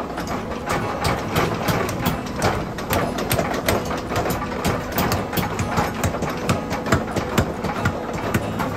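Mechanical power hammer pounding a red-hot steel hammer blank held in tongs, striking rapidly several times a second over the steady hum of its drive.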